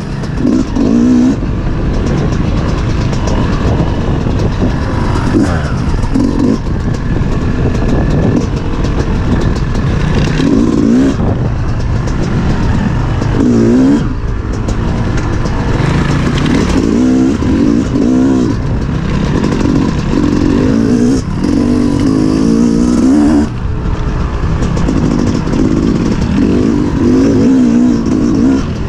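Off-road dirt bike engine revving up and down over and over as it is ridden, the throttle rolling on and off with several brief cuts.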